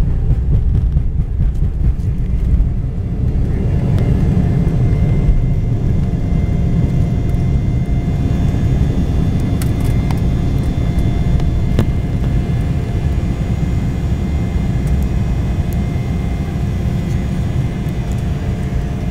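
Cabin noise inside an Embraer 190 jet airliner under power after takeoff: a steady, loud rumble of its General Electric CF34 turbofans and airflow, with a faint steady whine joining about three seconds in.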